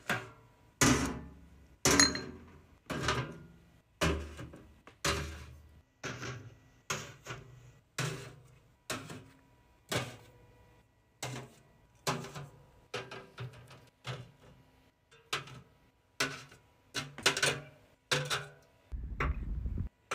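Snack cups and aluminium drink cans set down one by one into a metal mesh cart basket, a sharp clack or clink about once a second, each ringing briefly. A short low rumble comes near the end.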